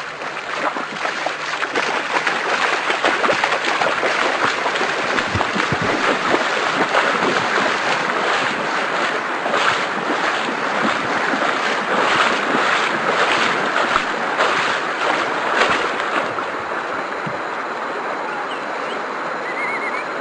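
Swollen, muddy floodwater river rushing, with repeated splashing from people wading through it, busiest in the middle, then a steadier rush near the end.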